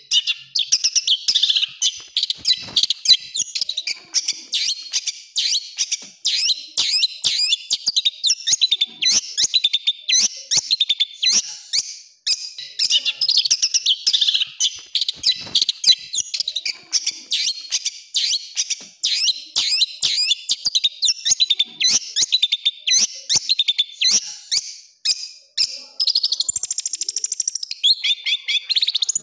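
Long-tailed shrike (cendet) singing a fast, nonstop stream of short harsh chattering notes and trills, with a higher, more drawn-out run of notes near the end.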